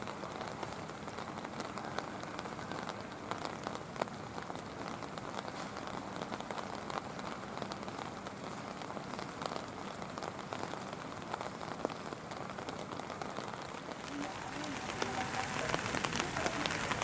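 Rain pattering: a steady hiss with many small ticks. It becomes louder and brighter about fourteen seconds in.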